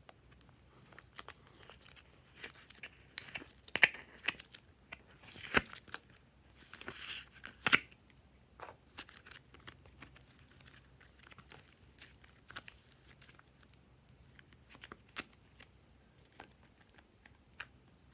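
Hands working clear slime, with sticky crackles and sharp pops, a dense cluster of louder pops in the first half, then scattered single clicks.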